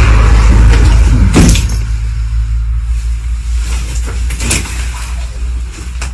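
Bricks knocking and clattering as they are pulled loose from a broken brick wall: a few sharp knocks, the loudest about a second and a half in, then again around four and a half seconds and near the end. Under them runs a steady low rumble.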